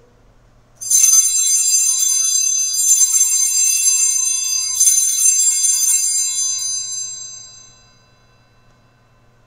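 Altar bells, a cluster of small sanctus bells, rung three times about two seconds apart at the elevation of the chalice after the consecration. Each ringing is bright and high and dies away over a few seconds.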